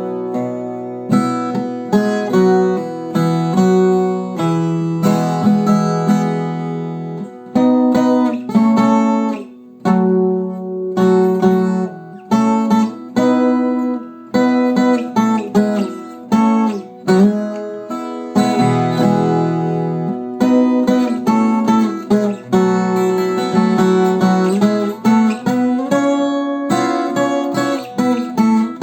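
Viola caipira, the Brazilian ten-string guitar, being played: picked melody notes and strummed chords, with a few short breaks between phrases.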